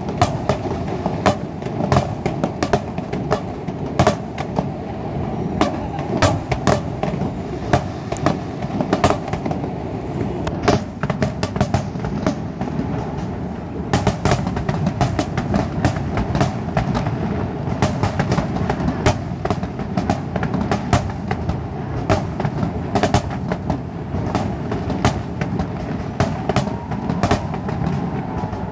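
Fireworks display going off continuously: a dense run of bangs and crackles, several a second, over a steady rumble of overlapping bursts.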